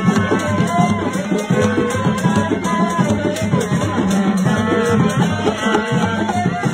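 Dance music of drums and shaken rattles in a steady rhythm, with a melody line above it.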